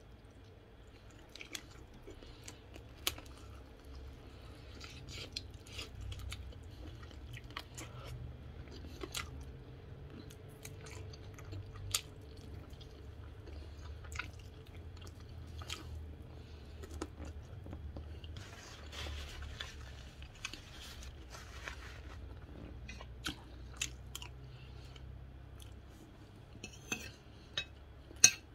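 Close-up chewing, biting and small crunches of a person eating chicken off the bone, with scattered mouth clicks. A sharp clink near the end as a spoon scoops from the plate.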